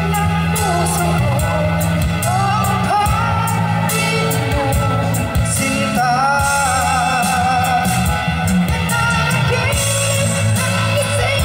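A woman and a man singing a pop duet into handheld microphones over instrumental backing music, amplified through loudspeakers.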